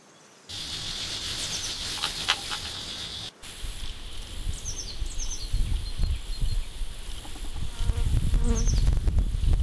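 Insects buzzing and chirping, with short high chirps repeating every second or so. After a brief dropout about three seconds in, a low wind rumble on the microphone grows.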